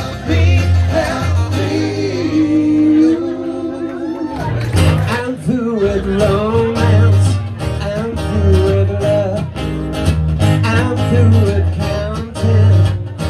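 Live amplified band: strummed acoustic guitar and electric bass with a man singing into a microphone. The bass drops out briefly about four seconds in, then the strumming picks up again.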